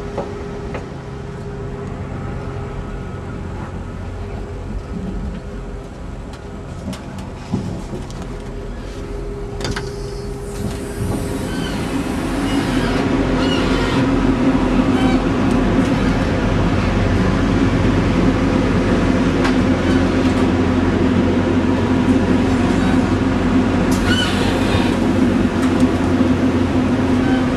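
Class 175 diesel multiple unit heard from inside while under way: a steady underfloor diesel engine drone with wheel and running noise. It grows louder and rougher about eleven seconds in and stays so, with a few faint clicks just before.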